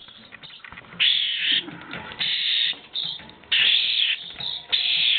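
Baby birds begging for food: shrill, harsh calls, each about half a second long, coming four or five times about a second apart.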